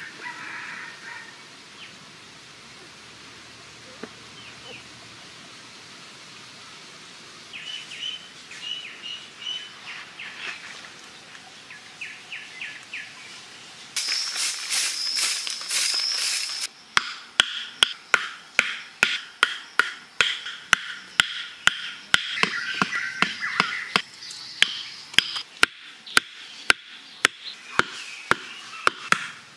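A puppy whimpers briefly at the start while birds chirp in the background. About halfway, a twig broom scrapes across the dirt for a few seconds. Then come steady sharp knocks, about two a second, as short bamboo stakes are hammered one by one into the ground.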